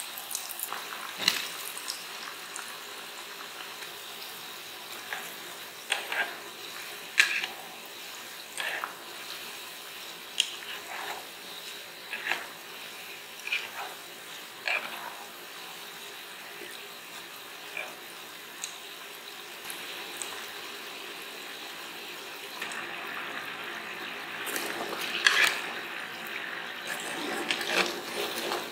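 Potato pieces deep-frying in hot oil in a small pot: a steady sizzle with scattered sharp pops and crackles. Near the end it gets louder and busier as chopsticks and a wire skimmer stir the potatoes.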